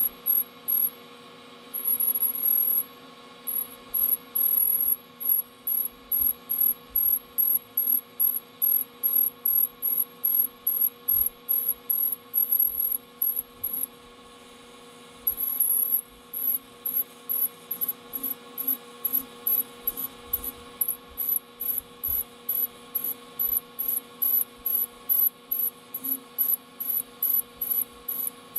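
Lathe running with a steady hum while a parting tool cuts into a small spinning workpiece in short pecks to break the chips: a high-pitched cutting squeal in short bursts, about two or three a second, stopping briefly twice.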